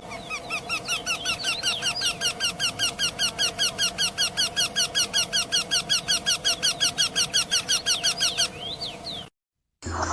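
A bird chirping rapidly and evenly, a fast run of short rising chirps at about five a second, which stops about a second before a sudden cut to silence.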